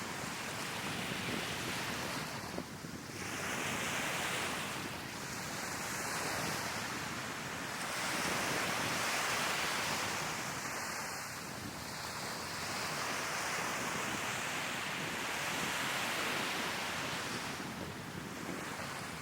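Sea waves breaking and washing up the shore, the surf swelling and easing every few seconds, with wind buffeting the microphone.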